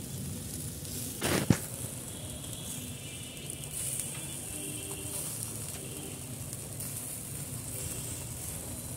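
Chicken sizzling on a small charcoal grill, a steady hiss over the hot coals, with a single brief knock about a second and a half in.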